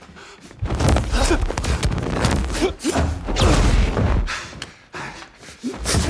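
Film excerpt of a personal-shield fight: the shields' glitchy, rapid clicking, a synthesized effect grown from a filtered machine gun and a glitching synthesizer, over thuds of blows and short grunts and gasps.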